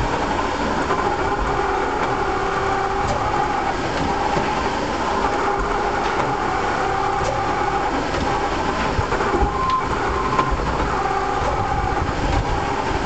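Roof-tile making machine running steadily: continuous mechanical noise with a steady hum and a few light clicks.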